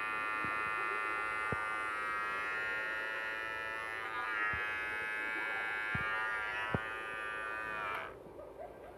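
WAER cordless rechargeable hair clipper running, its blade giving a steady electric buzz, with a few light handling knocks. It is switched off and stops abruptly about eight seconds in.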